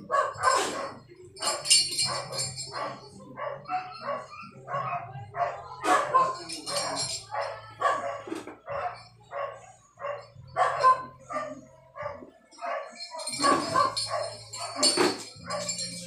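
A dog barking over and over in short barks, two or three a second, with a low steady hum underneath that cuts out briefly about twelve seconds in.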